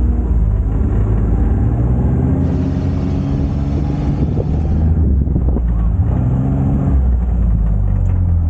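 UTV engine running as the vehicle drives along: a steady low hum whose pitch shifts slightly now and then.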